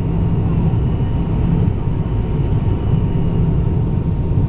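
Steady airliner cabin noise during the landing approach: a constant low rumble of engines and airflow heard from inside the cabin, with a faint steady whine over it.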